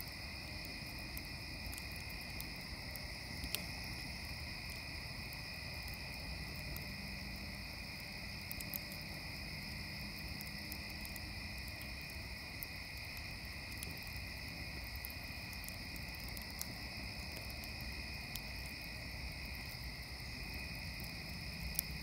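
Steady high-pitched trilling chorus of tree frogs, with a wood fire crackling: scattered sharp pops, a louder one a few seconds in and another near the end.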